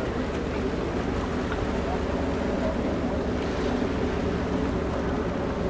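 Steady outdoor ambience: wind buffeting the microphone over a low rumble, with faint distant voices.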